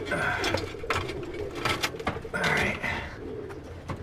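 A few sharp knocks and scraping handling sounds from repair work on a skylight frame, with pigeons cooing faintly.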